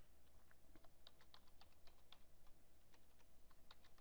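Faint typing on a computer keyboard: irregular quick key clicks, several a second.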